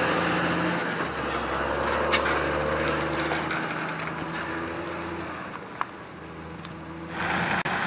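John Deere tractor's diesel engine running as it tows a loaded Annaburger manure spreader past, steadily fading as it draws away. Near the end a louder rushing noise cuts in briefly.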